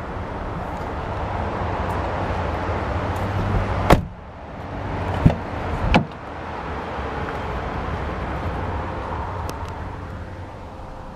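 2017 Toyota Tacoma crew-cab door shutting with a sharp thud about four seconds in. A click and a second thump follow over the next two seconds, as a door latch works and the door is opened again, all over steady outdoor and handling noise.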